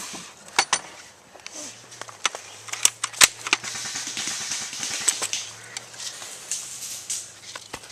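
Airsoft guns firing single shots as sharp snaps: two close together just under a second in, then a few more around three seconds, with a steady rustling hiss of movement in between.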